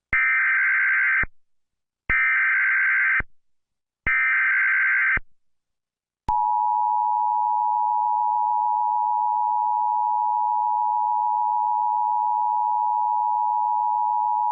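Emergency Alert System header: three short bursts of digital data tones about two seconds apart, then the steady two-tone attention signal held for about eight seconds.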